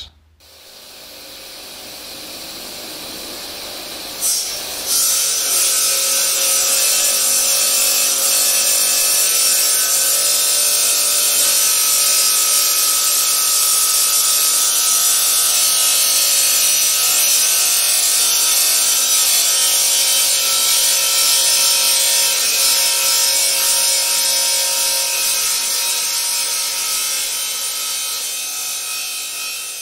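Water-cooled diamond-blade wet saw cutting through a block of laminated glass sheets. It builds over the first few seconds, then about five seconds in becomes a loud, steady grinding hiss with a steady whine over it, easing off near the end.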